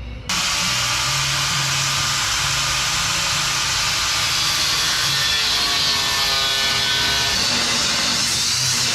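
Power tool cutting steel, starting abruptly and running steadily: cutting the old motor-mount welds off a truck frame.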